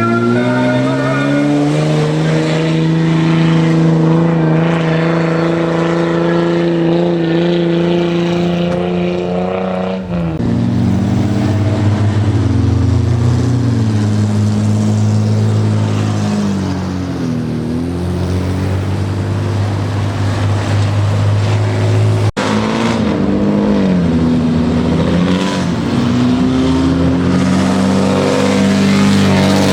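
Engines of customised old Japanese cars revving loudly as they drive in. Revs climb and hold for several seconds at first, then are blipped up and down again and again, with sudden changes about a third and two thirds of the way through.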